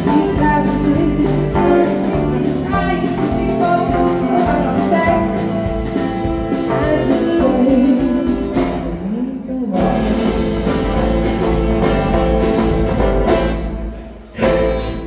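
Live band playing a song with singing. Near the end the music breaks off briefly, and a sharp hit brings the band back in.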